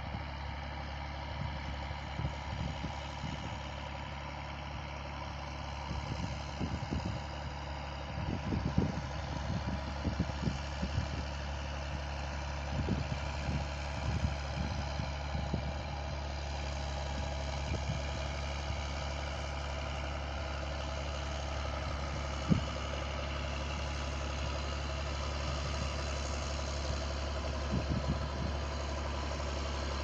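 Distant tractor engine running steadily as it pulls a plough, heard as a low, even drone. A few short low thumps come and go, the sharpest about 22 seconds in.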